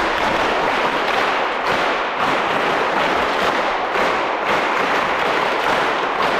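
A crowd of girls applauding, a dense steady clapping with louder claps coming in a loose beat.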